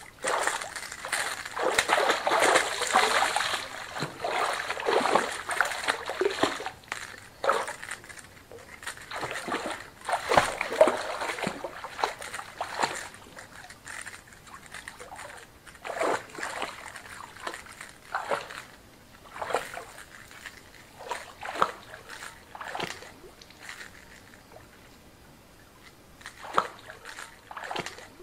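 Water splashing and sloshing in irregular bursts as a hooked fish thrashes at the surface on the line. The splashing is heaviest for the first several seconds and again around ten seconds in, then comes in fewer, smaller splashes.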